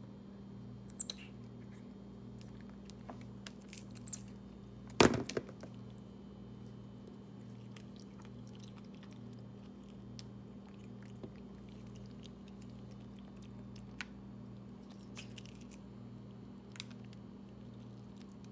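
White-faced capuchin monkey biting and chewing the hard chocolate coating and wafer of an ice cream cone: scattered small crunches and clicks, the loudest a sharp crack about five seconds in, over a steady low hum.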